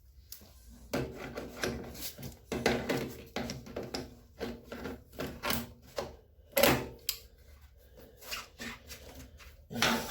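Pliers and hands working a rubber hose off a washing machine's drain pump: irregular clicks, knocks and scraping rubs of plastic and rubber, with the loudest knocks about six and a half seconds in and near the end.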